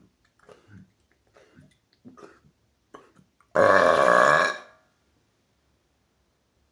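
A man's loud, deliberate burp lasting about a second, coming a little after three seconds in. A few faint short sounds come before it.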